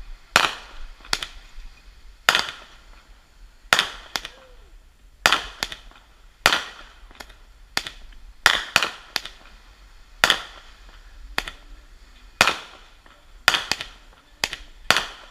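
Consumer fireworks going off: a string of about twenty sharp bangs at uneven intervals, roughly one or two a second, each with a short fading tail.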